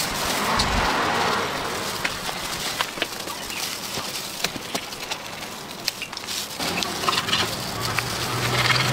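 Crisp, charred skin and flesh of a charcoal-roasted crocodile crackling and crunching as gloved hands tear it apart, with many small sharp clicks. Near the end a low steady hum, like an engine, comes in.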